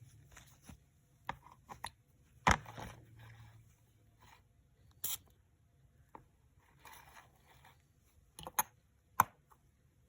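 Perfume packaging being handled and opened by hand: a series of sharp clicks and taps, the loudest about two and a half seconds in and two more near the end, between short stretches of rustling.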